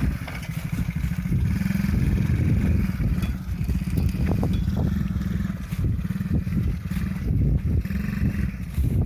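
Small 50cc engine of a children's quad bike running, its sound rising and falling unevenly as it rides.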